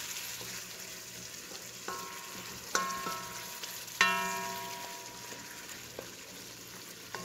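Catfish curry sizzling in a metal pot as it is stirred, with a spoon knocking the pot several times in ringing metallic clinks, the loudest about three and four seconds in.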